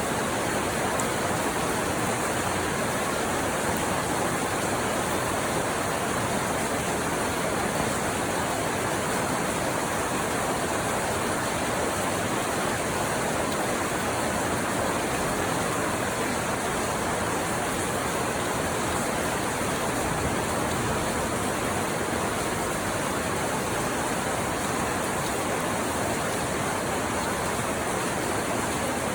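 Steady rain falling, heard as a dense, even hiss that does not change.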